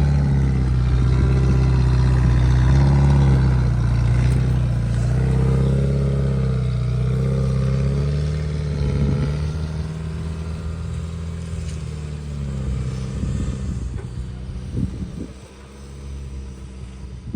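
An off-road vehicle's engine revving up and down several times, then easing off and growing quieter about ten seconds in, with scattered knocks and clatter near the end.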